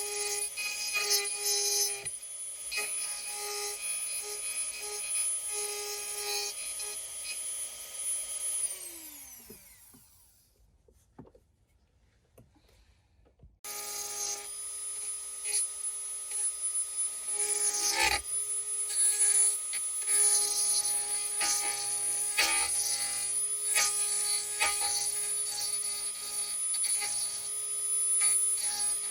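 Dremel rotary tool whining at high speed with a cutting bit grinding out a hole in the car's center console panel. About nine seconds in it is switched off and winds down in pitch. A few seconds of near silence with small clicks follow, then it starts again and cuts steadily with rough scraping.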